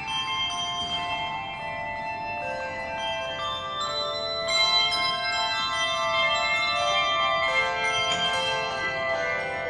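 Handbell ensemble playing a piece: tuned handbells struck in changing chords, each bell ringing on and overlapping the next, with a long ring in a large stone church.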